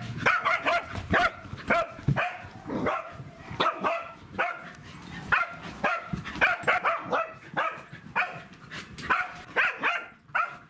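Pembroke Welsh corgis barking during rough play: short barks in quick runs of several a second, broken by brief pauses.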